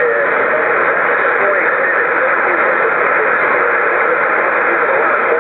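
Mobile amateur radio receiver putting out a loud, steady static hiss, narrow and tinny like a radio speaker, with faint warbling traces of a weak signal under the noise.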